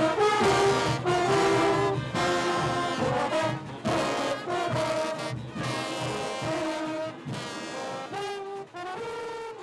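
Junkanoo band music: brass horns playing a melody in held notes over percussion, gradually fading out.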